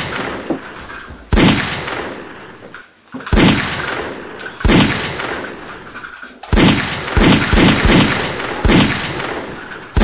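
Gunshot sound effects: about nine sharp shots, each with a ringing tail. Single shots come a second or two apart, then a quicker run of five about two-thirds of the way through.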